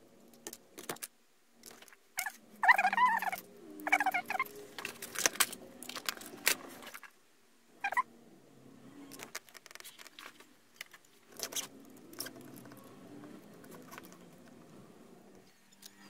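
Scattered clicks, taps and rustles of small electronic parts and tools being handled on a workbench, with two short squeaky, warbling sounds a few seconds in and another brief one about 8 s in.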